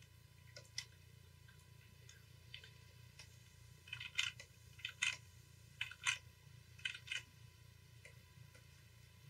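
Faint, short clicks from a computer input device as the digital painting is worked on. A couple of single clicks come early, then pairs of clicks about a fifth of a second apart come four times, roughly once a second, in the second half.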